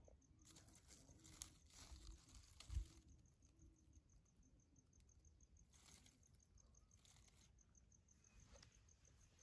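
Near silence outdoors: faint light rustling of handling noise, with one soft low bump nearly three seconds in and a faint, evenly pulsing high sound in the background.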